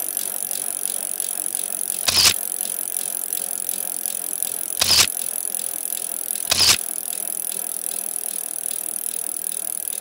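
A bicycle's rear hub freewheel buzzing steadily as the wheel spins. Three short whooshes come through it, about two, five and six and a half seconds in.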